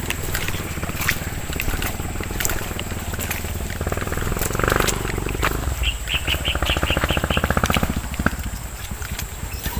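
A rapid, evenly pulsing animal call of about two seconds, starting about six seconds in, with a short string of high chirps over it, against a steady low rumble and scattered clicks.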